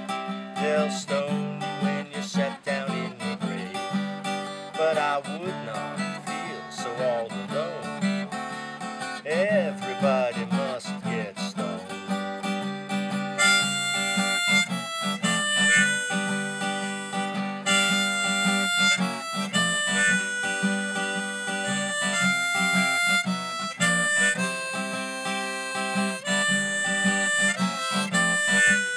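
Harmonica played from a neck rack over a strummed acoustic guitar, in an instrumental break of a folk-rock song. The harmonica bends notes in the first half, then plays higher, held notes from about halfway.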